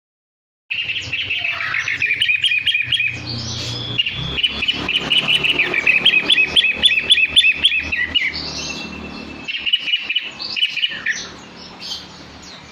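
Long-tailed shrike (cendet) singing a long, vigorous song of fast repeated chattering notes, starting suddenly about a second in and easing off near the end.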